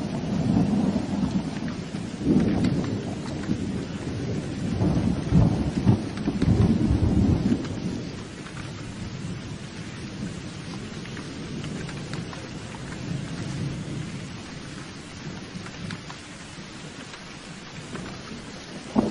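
Rolling thunder rumbling through steady rain, swelling several times over the first half, then dying away and leaving just the rain falling.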